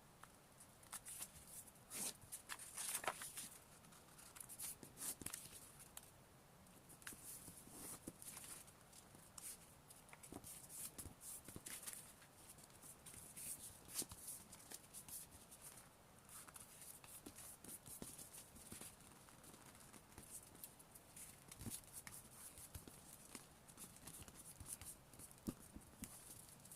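Sheet of paper being folded and creased by hand: faint, irregular rustles and crinkles.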